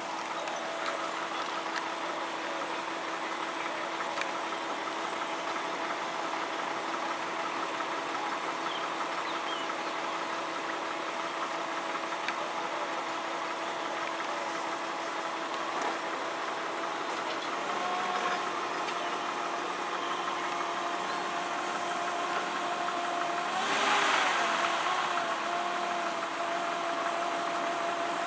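Level crossing audible warning alarm sounding continuously, a steady electronic tone, while the barriers are down. The tone pattern changes about two-thirds of the way in, and a brief rushing noise stands out a few seconds before the end.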